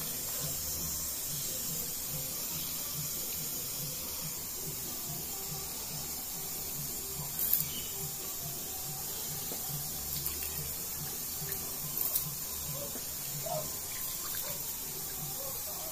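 Water bubbling at a rolling boil in an aluminium pot as handfuls of rice are dropped in, with a few short, louder splashes and a low, regular pulsing underneath.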